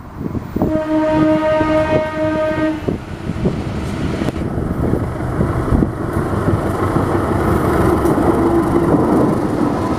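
GE CC206 diesel-electric locomotive's air horn sounding one blast of about two seconds, then the locomotive's diesel engine and the train's wheels running past on the rails, getting louder toward the end.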